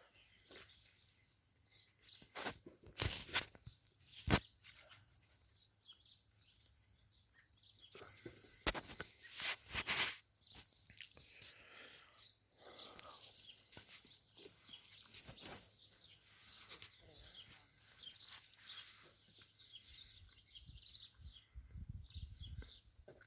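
Outdoor garden ambience: insects chirring faintly and steadily, with a few sharp knocks in the first ten seconds and soft rustling and crackling after that.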